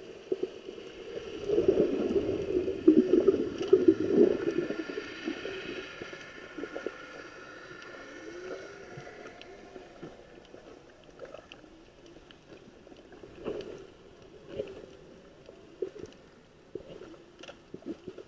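Muffled underwater sound picked up by a submerged camera: gurgling and bubbling water, loudest in the first few seconds, with scattered clicks and a faint steady hum that fades out about halfway.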